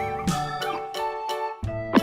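Children's background music on a keyboard, with held notes and a steady beat; it drops out briefly near the end.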